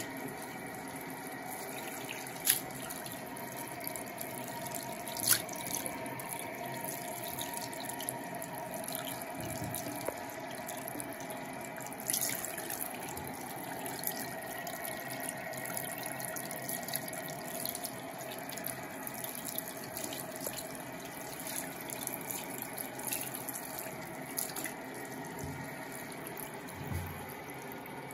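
Bathroom sink tap running in a steady stream, the water splashing over a kitten's wet fur and into the basin. A few sharp clicks stand out over the running water.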